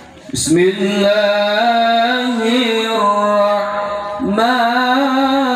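A man's voice chanting into a microphone over loudspeakers in long, slowly wavering held notes, with a breath and a fresh phrase about four seconds in.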